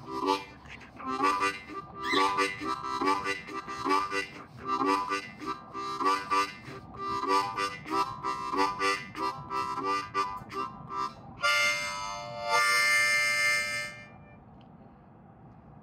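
Hohner diatonic harmonica played as a train imitation: quick, rhythmic chugging chords, about two or three a second. Near the end comes a long held chord in two parts, the train whistle, which cuts off shortly before the end.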